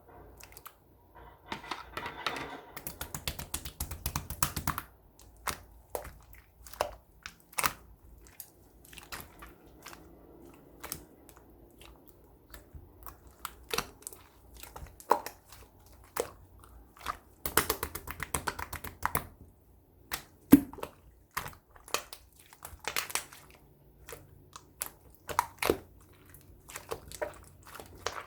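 Close handling noises: irregular taps and clicks with bursts of crinkling or rustling, the longest stretches a few seconds in and again around the middle, and one sharper knock just after the middle.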